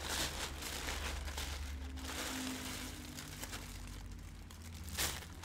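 Plastic shipping-mailer bag rustling and crinkling as it is handled and opened, with a clear plastic inner bag pulled out; one sharper, louder crinkle about five seconds in.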